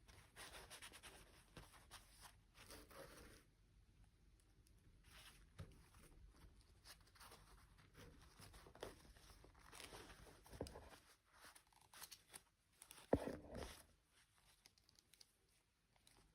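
Hands handling toy packaging: faint rustling and tearing with scattered small clicks, and one sharper knock near the end.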